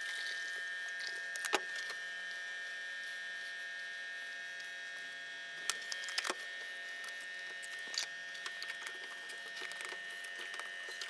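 A faint steady high whine with several overtones, with a few light clicks and taps of small objects being handled.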